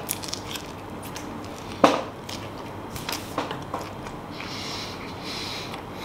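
A person chewing a mouthful of French toast with popcorn, with a few sharp clicks, the loudest about two seconds in, and faint crackling later on.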